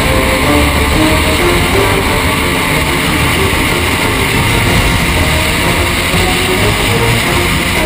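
Racing powerboat's engine running flat out at speed, with wind and water rushing over the onboard camera, steady and loud. Rock music with guitar plays faintly underneath.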